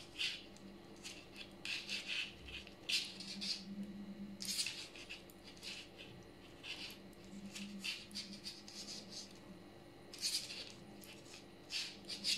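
Metal double-pointed knitting needles scraping and clicking lightly against each other as stitches are worked, with yarn rustling; short scratchy sounds at an uneven pace, about one or two a second.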